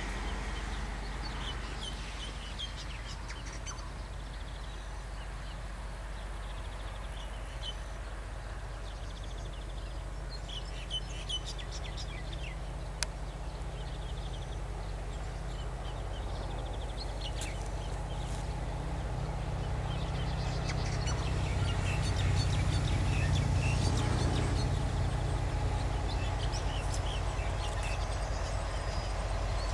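KiwiRail DC-class diesel-electric locomotive engine running with a low, steady rumble as the slow work train approaches, growing louder about two-thirds of the way through, while small birds chirp.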